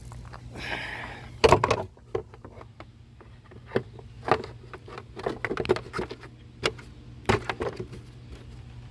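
Plastic engine cover being set back on over the engine: a brief scrape, then a loud knock and a string of clacks and knocks as it is pushed and fitted into place.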